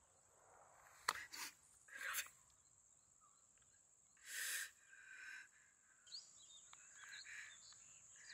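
A man's heavy, gasping breaths, a few short ones about one, two and four seconds in, over a faint steady hiss with a high whine. A sharp click just after one second, and faint bird chirps near the end.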